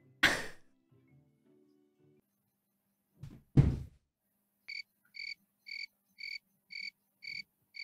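A short noisy burst near the start, then a single dull thud about three and a half seconds in as a person headbutts a bedroom wall. After it, a cricket-chirping sound effect, about two chirps a second, marking an awkward silence.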